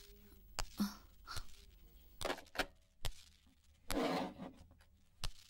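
A few scattered light knocks and clicks with brief rustling in a small room, irregularly spaced, the longest rustle about four seconds in.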